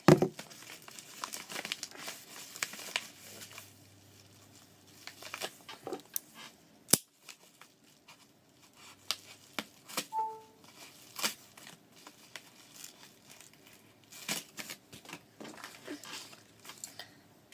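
Packaging being opened by hand: irregular crinkling and tearing with scattered sharp clicks. There is a loud knock right at the start.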